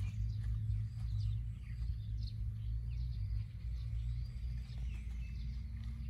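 Birds chirping and calling in short sweeping notes, over a steady low rumble.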